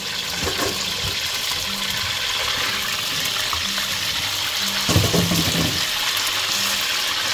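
Chicken pieces deep-frying in hot oil in a steel pan: a steady, loud sizzle. A metal slotted spoon turns the pieces, with a few knocks and scrapes against the pan about five seconds in.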